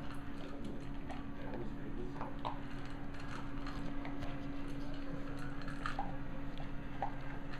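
Two corgis making small sounds on a tile floor: scattered soft clicks and wet smacking from eating at a stainless-steel bowl, over a steady low hum.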